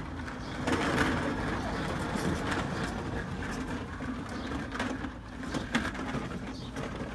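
Small children babbling and cooing in short bursts over a steady low hum.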